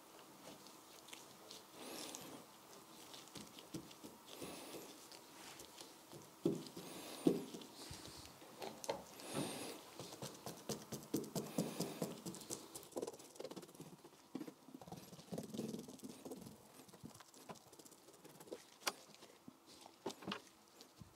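Gloved fingers pressing and patting sticky polyester-resin-soaked glass-fibre mat onto a fibreglass bonnet, giving faint, irregular wet smacks and taps. Later a small brush dabs resin into the mat.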